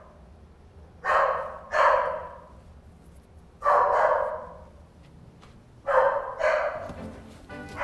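A dog barking repeatedly, mostly in pairs of barks about half a second apart, with pauses of a second or more between the pairs.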